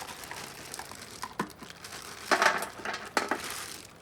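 Plastic crinkling and rustling as the pool pump's hoses are handled, loudest about two and a half seconds in.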